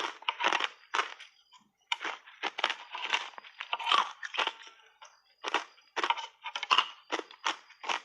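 Crunchy matcha tea ice cubes being bitten and chewed: quick runs of sharp, irregular crunches, with short pauses about a second and a half in and again about five seconds in.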